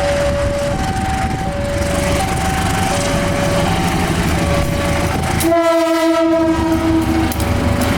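Diesel locomotive CC 201's horn sounds one loud blast of about two seconds, starting about five and a half seconds in. Under it runs a low rumble, and a two-tone warning alarm alternates steadily between a higher and a lower note.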